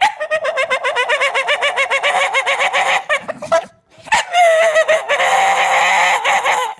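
Staffordshire Bull Terrier 'talking': a loud, warbling whine-grumble that wavers rapidly up and down in pitch, in two long runs broken by a short pause about halfway. It is the dog's way of asking to play.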